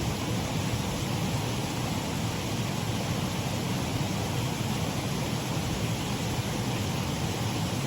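Shallow waterfall on a mill race stream: water running over a low drop in a steady, even rush.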